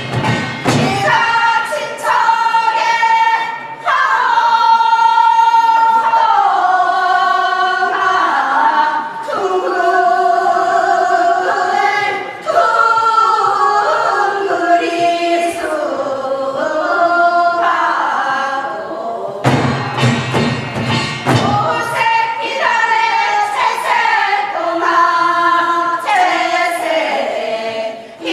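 A group of singers performing Gyeonggi folk song (hwimori japga) together, with held notes that bend and slide between pitches. A cluster of sharp drum strokes comes in about twenty seconds in.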